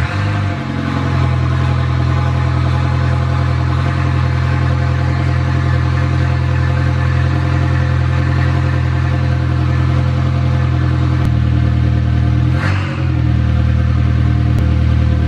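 VW 1.8-litre turbocharged four-cylinder (1.8T) running steadily just after its first start, with a brief dip in the sound about twelve and a half seconds in.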